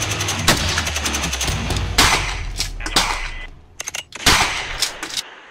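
Gunshots from a rifle and a shotgun echoing in an indoor shooting range: single shots about a second apart, a quick cluster of sharp cracks a little before four seconds in, then a couple more shots. Background music with a steady bass runs underneath and fades out about halfway through.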